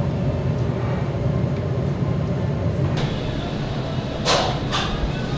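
Restaurant room noise: a steady low rumble, with two short swishes close together a little after four seconds in.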